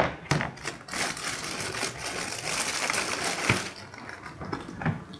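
Rustling, crinkling handling noise with a few light knocks as a squishy toy is picked up and brought out; it dies down after about four seconds.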